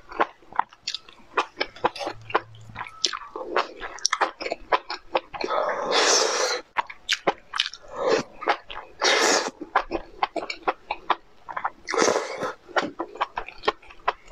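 Close-miked eating: wet chewing and lip-smacking clicks, broken three times by loud slurps as long sauce-coated noodles are sucked into the mouth.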